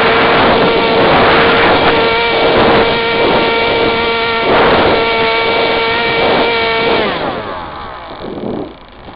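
Onboard sound of a Firebird Scout radio-controlled plane's electric motor and propeller: a steady high buzzing whine with wind rushing over the camera. About seven seconds in the whine falls in pitch and fades away, leaving mostly wind noise.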